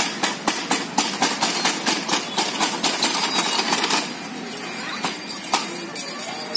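Steel outdoor gym cross-trainer clanking in a quick rhythm as it is worked, about four metal knocks a second from its pivots. About four seconds in, the knocks thin out to a few scattered ones.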